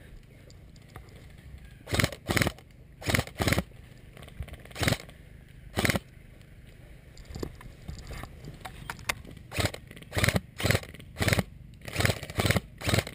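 Footsteps of a player moving over rough ground, at first a few uneven steps, then a steady walking pace of about two steps a second in the second half.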